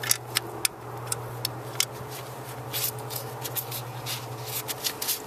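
Bare hands handling the plastic wiring tray and coil connectors on a car engine: a scattered run of small, sharp plastic clicks and rubbing, over a steady low hum.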